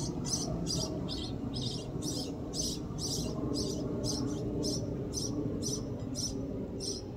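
Small bird chirping steadily, short high-pitched chirps about three times a second, over a low steady rumble.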